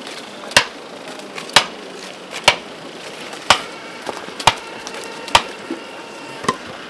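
Hand tool driving a bamboo stake into the ground to brace a young palm, with about seven sharp knocks roughly a second apart.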